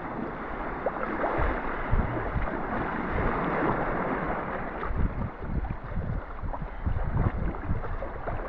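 Water sloshing and splashing, with gusts of wind thumping on the microphone.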